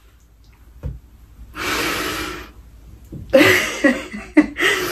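A woman laughing behind her hand: a long breathy exhale, then two short voiced bursts of laughter near the end.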